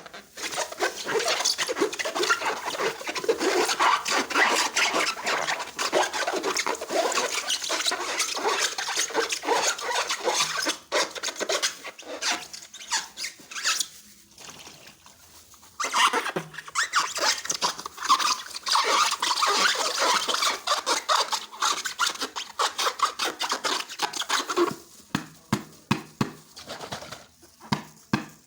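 Slime being squeezed and stirred by hand: a dense crackling, squelching run of small wet clicks that eases off briefly about halfway through and thins out near the end.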